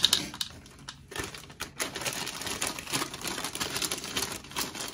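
Plastic bag of milk chocolate chips crinkling as it is handled, with scattered light clicks of chips dropping into a bowl.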